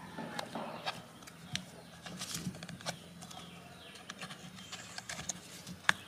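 Knife blade scraping and prying at the paper and cardboard inside a cut-open aerial firework shell, in scattered small clicks and scratches, over a faint steady low hum.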